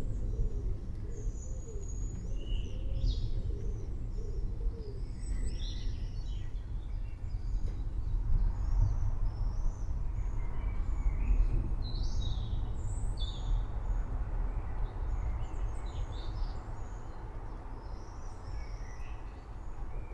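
Birds chirping and calling in short scattered notes over a steady low storm rumble, which swells a little around the middle.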